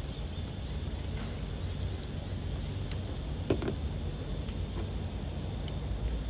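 Light metallic clicks of a spanner and fittings being worked at a hydraulic pump's hose connection, the sharpest about three and a half seconds in, over a steady low hum.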